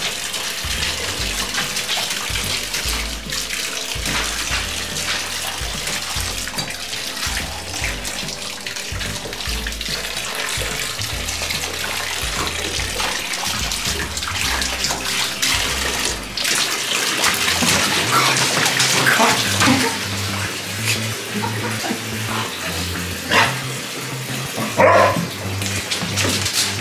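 Bathtub faucet running steadily into the tub, splashed by a golden retriever puppy biting and lapping at the stream, over background music. In the last third the scene changes and a few short, louder sounds stand out.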